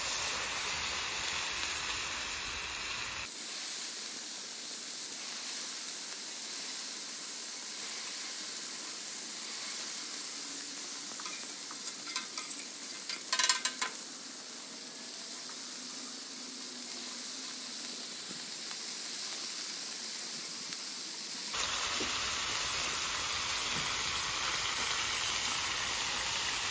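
Thick-cut bacon strips and raw sausage links sizzling on a hot Camp Chef flat-top griddle: a steady frying hiss, with a few short clicks about halfway through.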